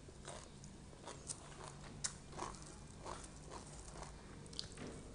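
A person chewing raw vegetables with the mouth close to the microphone: soft, irregular crunches and wet mouth clicks, the sharpest about two seconds in.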